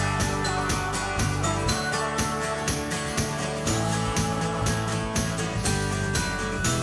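Upbeat background music with a steady beat, bell-like jingles and guitar.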